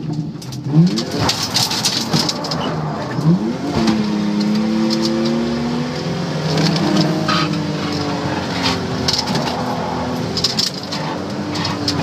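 Holden VL Commodore's RB30E 3.0-litre straight-six revving hard, rising in quick sweeps three times, then holding a steady high-rev drone. Sharp bangs come through now and then.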